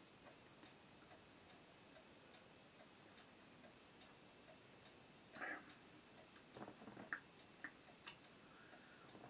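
Near silence: quiet room tone with a faint, regular ticking, and a few short soft sounds about halfway through and again a little later.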